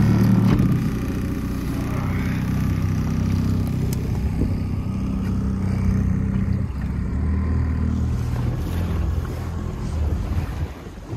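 Boat engine running, a low steady drone that drops away near the end.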